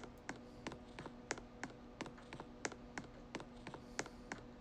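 Ceiling fan running, with a steady motor hum and a sharp, regular tick about three times a second.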